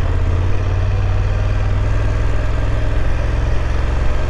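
BMW F850 GS parallel-twin engine running steadily with a low, even note.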